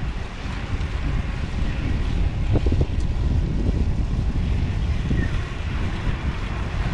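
Wind rumbling on the microphone over the rolling of an Orbea Vibe H30 e-bike ridden on pedal assist 3, with a few light knocks near the middle. Its 250-watt rear hub motor is very quiet, and no motor whine stands out above the wind.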